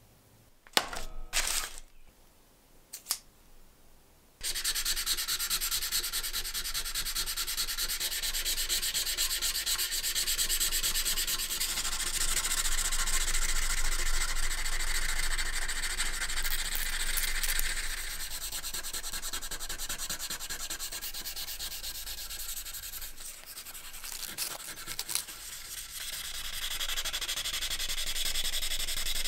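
Straight razor blade being hand-sanded with abrasive paper against a workbench to take out rust pitting: a few short knocks, then, from about four seconds in, a steady rapid rubbing that eases briefly near the end before picking up again.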